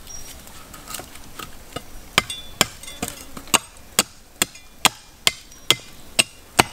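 Steel cleaver chopping into a piece of wood: a few light taps, then a steady run of about eleven sharp chops, roughly two a second, starting about two seconds in.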